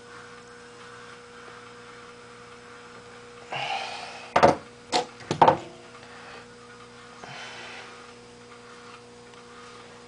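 Steady electrical hum, with a brief rustle and then three sharp knocks close together around the middle as the rifle's synthetic stock and cheek rest parts are handled on the bench.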